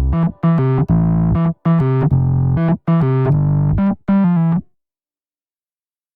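Background music: an electric piano plays a run of short chords, then stops cold about four and a half seconds in, leaving dead silence.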